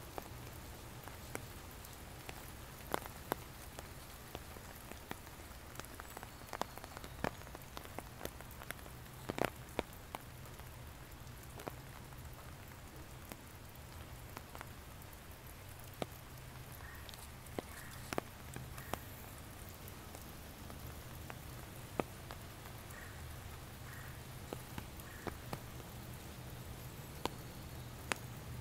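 Raindrops falling on foliage: a steady soft hiss with irregular sharp drops landing close by, about a second or two apart.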